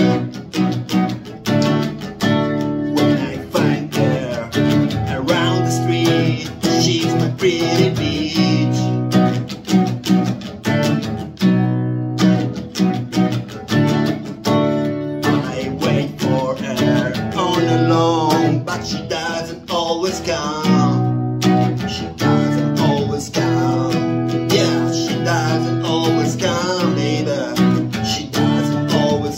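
Acoustic guitar strummed in the key of B, with a man singing phrases over it and instrumental gaps between the lines.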